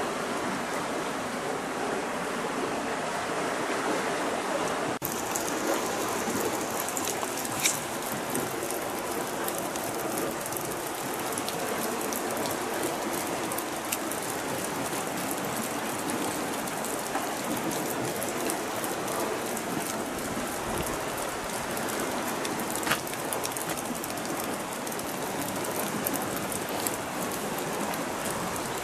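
Light rain falling: a steady hiss with many small drop ticks, and two louder ticks, about eight seconds in and about six seconds before the end.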